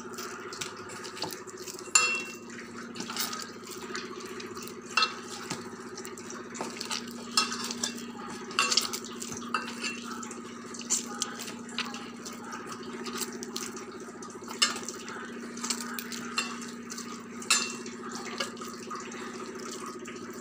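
Oiled flour dough being kneaded and pressed by hand in a stainless steel bowl, with irregular knocks and clinks of hand and dough against the metal bowl. A steady low hum runs underneath.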